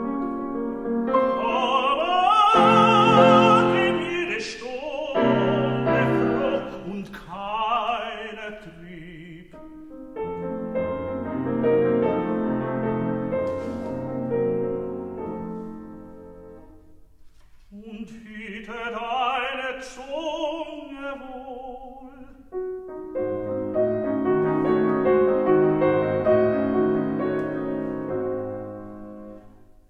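Classically trained tenor singing an art song with grand piano accompaniment. The voice comes in phrases with a wide vibrato, and the piano carries on between them.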